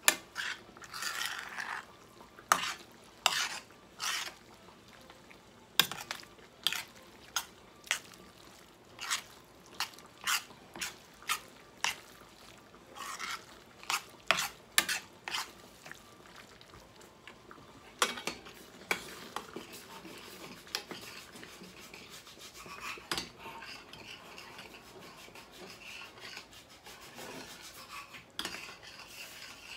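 A spoon stirring and scraping a thick mixture in a large stainless-steel skillet, knocking against the pan in many sharp, irregular clacks. About eighteen seconds in the clacking thins out, leaving softer scraping and stirring.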